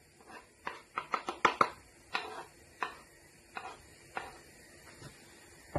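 A kitchen utensil tapping and knocking against a bowl as crushed roasted garlic is added to mayonnaise: a dozen or so short, irregular taps, several in quick succession about a second in.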